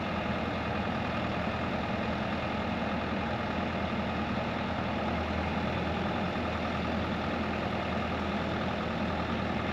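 Bobcat E55 compact excavator's diesel engine running steadily at a low, idle-like speed.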